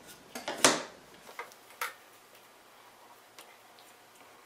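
Light clicks and knocks of thin wooden strips and a glue bottle being handled and set down on a wooden workbench. The loudest knock comes about two-thirds of a second in, followed by a few fainter ticks.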